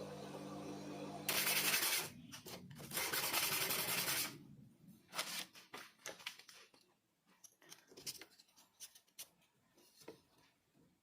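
Hand-tool scraping and rubbing: two loud rasping strokes in the first few seconds, then lighter scattered scratches and clicks. A steady low hum stops about two seconds in.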